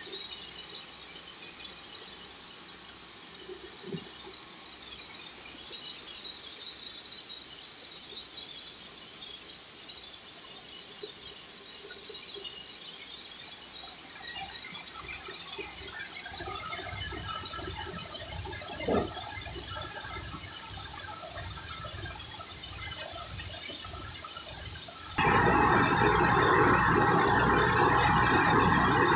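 Tractor-driven corn sheller running, with a steady high-pitched squealing whine. About 25 seconds in, the machine noise suddenly becomes louder and fuller.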